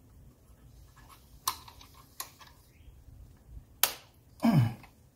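Small metal clicks and taps as the cadmium-plated throttle linkage rods are handled and pressed into place on the engine, three sharp clicks spread over a few seconds. Near the end there is a brief, low, falling voice sound.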